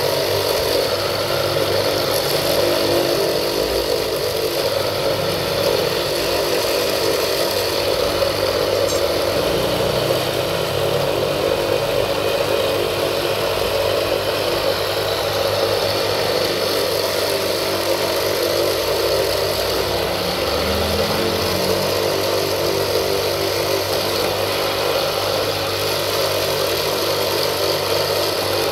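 Electric drill motor running steadily with a high hum, its small bit boring rivet holes through wooden knife-handle scales.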